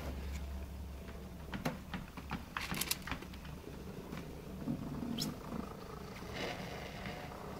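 Treadmill motor and belt running with a steady low hum, with scattered clicks and knocks from the walking cat on the moving belt, and a short high squeak about five seconds in.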